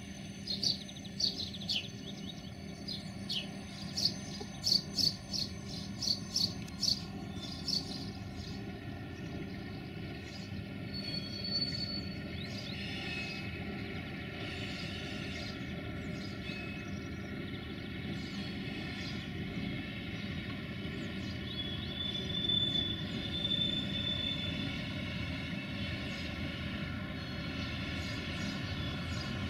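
Diesel engine of a 060-DA (LDE2100) diesel-electric locomotive running steadily as it draws a freight train slowly through the station, its rumble growing louder near the end as it comes closer. Birds chirp over it for the first several seconds.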